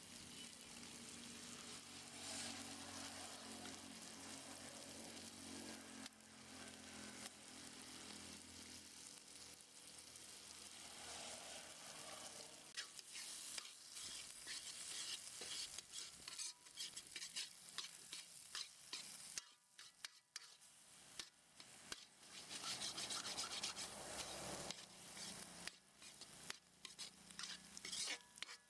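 Chopped ridge gourd and egg sizzling in a dark metal kadai. From about halfway through, a steel ladle stirs and scrapes against the pan in many quick strokes as the egg is scrambled into the gourd.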